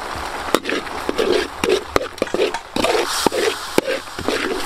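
A metal ladle scraping and clicking against a steel wok while chili sauce is stirred and sizzles. Sharp clicks come at uneven intervals.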